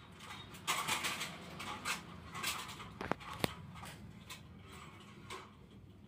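PVC electrical insulating tape being pulled off its roll and wound around a wire joint, in several short noisy pulls, with two sharp clicks about three seconds in.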